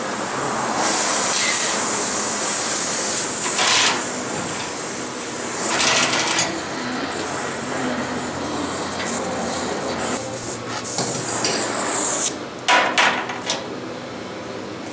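Oxy-fuel gas torch hissing steadily as it heats a seized stud in a cast-iron exhaust manifold to break it loose. The hiss stops abruptly about 12 seconds in, followed by a few clinks of metal tools.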